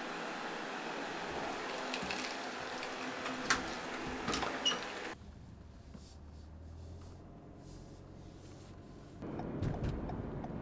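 A door and a few handling knocks over a steady hiss, then, after a cut, the low steady hum inside a moving car's cabin, which gets louder with a low rumble about nine seconds in.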